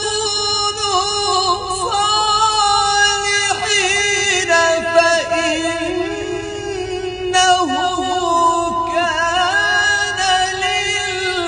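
A man reciting the Quran in the melodic, ornamented tajweed style, drawing out long wavering notes in several extended phrases, amplified through a microphone in a reverberant hall.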